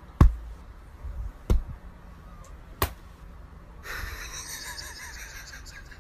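Three sharp knocks about a second and a half apart, the first the loudest, over quiet room noise, then a faint hiss from about four seconds in.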